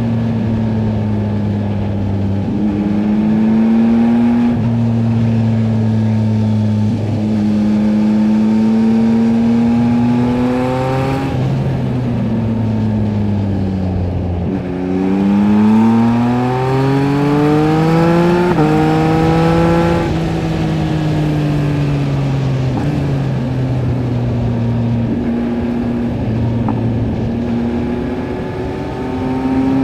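2023 Yamaha MT-09 SP's 890 cc inline-three engine through a LeoVince LV Race exhaust, riding. Its pitch rises and falls with the throttle. Near the middle it climbs steeply under acceleration through a gearshift, then eases off and settles to a steady run.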